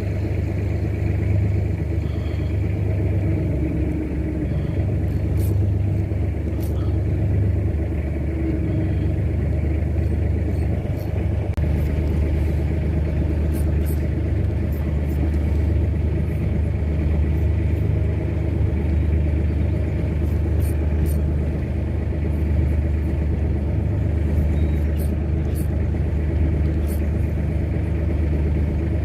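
Boat's engine running steadily under way, a constant low rumble with a few faint ticks scattered through.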